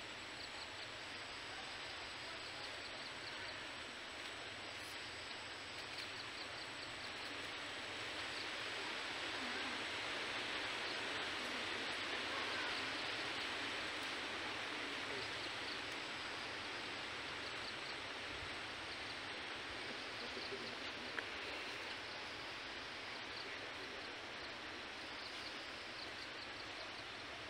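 Steady outdoor background hiss, swelling a little in the middle, with faint high ticks now and then.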